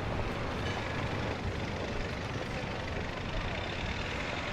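Steady city street ambience added as a sound effect: a continuous wash of vehicle traffic noise with a low hum.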